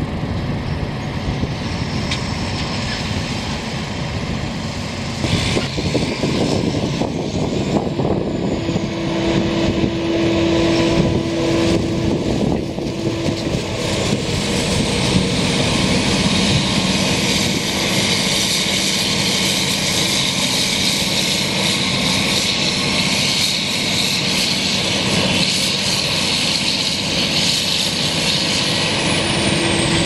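Claas Jaguar 980 self-propelled forage harvester chopping corn and blowing it out of its spout, with a Fendt 939 Vario tractor running alongside. A loud, steady machine drone runs throughout, and a high whine grows in from about halfway through.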